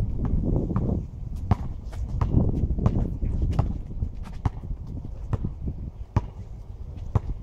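Basketball being dribbled on an asphalt court: sharp bounces coming a little under a second apart, over a low rumble.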